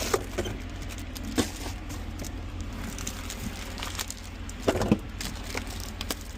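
A few sharp knocks and clicks of plastic bottles and food containers being moved around in a small fridge, with a cluster of knocks near the end, over a steady low hum.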